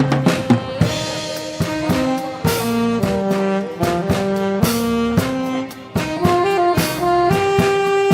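Live band playing social-dance music: held melody notes from a brass or saxophone lead over a steady drum-kit beat.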